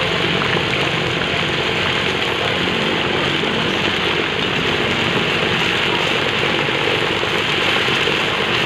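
Fish frying in hot oil: a steady, unbroken sizzle.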